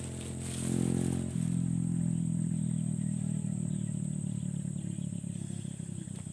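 A motor engine running steadily with a low hum, growing fainter over the last few seconds as it moves off.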